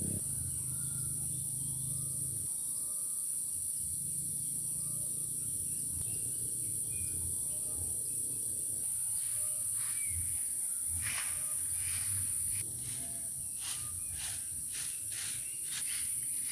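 A steady high-pitched insect chorus with faint bird chirps. From about nine seconds in comes a run of short dry crackles and rustles, a few a second, that are closer and louder.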